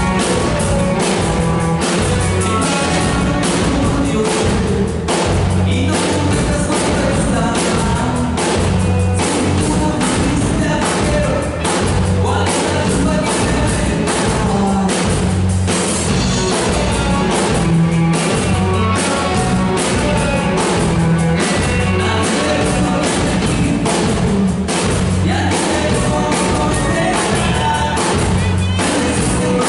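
Live rock band playing: electric guitar and drum kit with a steady beat, and a man singing.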